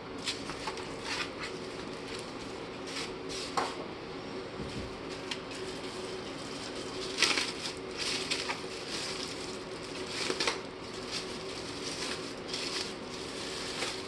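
Irregular rustling, crinkling and light knocks of packaging being handled as a small bookshelf speaker is unpacked from its box, with the sharpest knocks about seven and ten seconds in.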